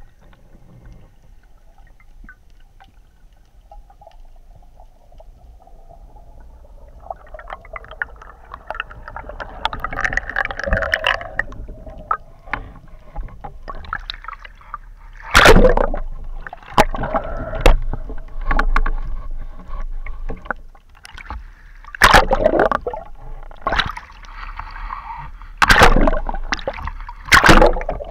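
Underwater and surface sounds on a freediving spearfisher's head-mounted camera. First a quiet, muffled stretch underwater, then a rush of bubbling water noise during the ascent. From about halfway on come loud, sharp gusts a few seconds apart: the diver's hard breaths through the snorkel after surfacing.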